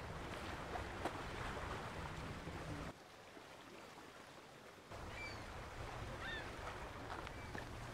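Lakeshore ambience: a steady low rumble and hiss that drops away for about two seconds starting about three seconds in. In the second half come a few faint, short bird calls.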